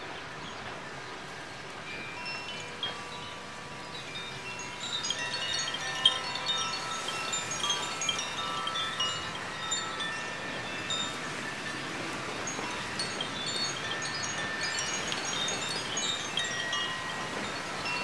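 Bamboo Koshi wind chimes ringing in the wind, with many short overlapping tones. They grow busier about five seconds in as the wind picks up, over a steady hiss of wind.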